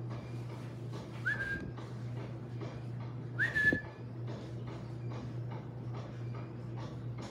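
Two short whistles about two seconds apart, each sliding quickly up and then holding one high note: a person whistling at a dog to get its attention. A steady low hum runs underneath.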